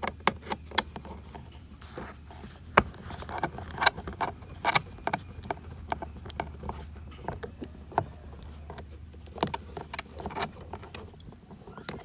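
Irregular sharp clicks and taps of a screwdriver working at a Phillips screw in a car's plastic door panel, over a steady low hum.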